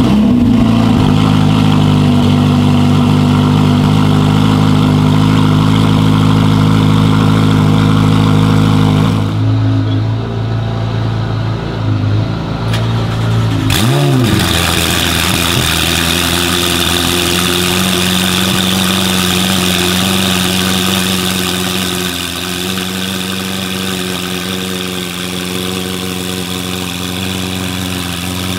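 Two Ferrari 488 twin-turbo V8s cold-starting one after the other. The first catches at once and holds a loud, steady high idle, which eases off about nine seconds in. About fourteen seconds in, the second fires with a quick rev flare and then settles into a steady idle.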